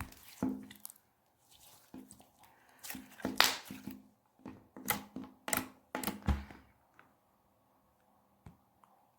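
Clear, slightly jelly-like slime being squished and pressed by hand, giving irregular wet clicks and pops. It goes quiet about seven seconds in.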